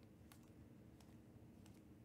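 Near silence with a low steady hum and about three faint clicks as Panini Prizm UFC trading cards are slid off a stack one at a time.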